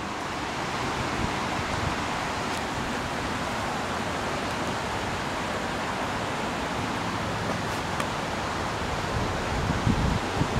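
Steady outdoor hiss with no clear pitch or rhythm, and a couple of faint clicks. Near the end, wind starts buffeting the microphone in low, uneven rumbles.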